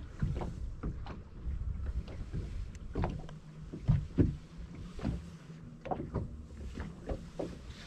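Water lapping and slapping against the hull of a bass boat, with irregular knocks on the deck and a faint steady hum partway through.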